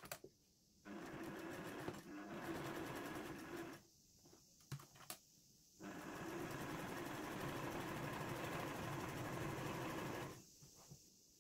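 Home sewing machine stitching a seam through layered denim. It runs in two steady stretches of about three and four and a half seconds, with a short stop between them that holds a few light clicks.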